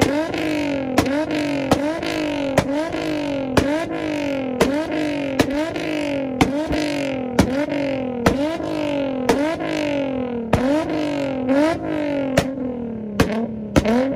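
A tuned car engine revved hard against its limiter over and over, about once a second. Each time the pitch jumps up with a sharp pop or bang, then sags back down.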